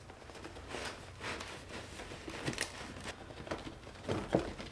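Flexible duct hose crinkling and rustling in short scrapes as it is worked by hand onto a blower fan's outlet, with a couple of firmer rustles a little after four seconds in.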